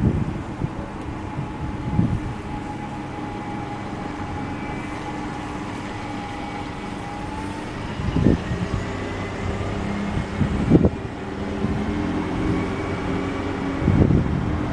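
Single-deck buses running and driving past, with a steady engine note and a higher whine that rises about halfway through. Gusts of wind buffet the microphone several times.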